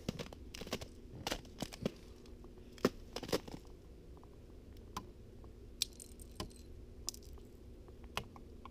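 Scattered light clicks and crunches of ice as a hand touches and snaps icicles hanging from the ice-coated lid of a plastic garbage bin.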